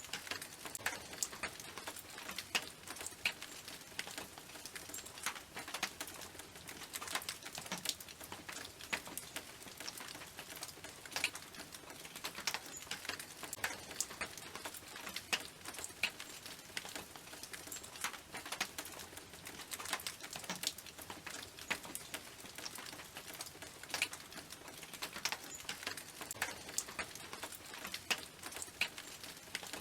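Rain falling on a tin roof: a steady hiss with many irregular sharp ticks of drops striking the metal.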